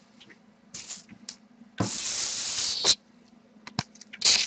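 Sheet of paper sliding across a desk: one even hiss about a second long, followed near the end by a light knock and a short rustle.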